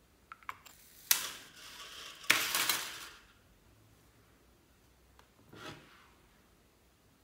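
Hard objects being handled and set down on a tabletop: a few light clicks, then two sharp knocks about a second apart, each followed by a clattering rattle, and a softer knock near the end.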